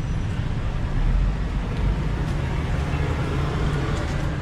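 City street traffic: a steady low rumble of passing vehicles, heaviest about a second in.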